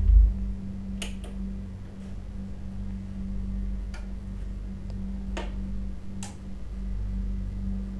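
Steady low mains hum from a powered-up amplifier and speaker setup idling with no music signal, broken by about five short, sharp clicks.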